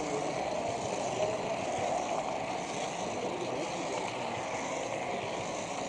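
H0 model train running steadily on the layout, heard from a camera riding on it: an even hum of the small motor and the wheels rolling on the track.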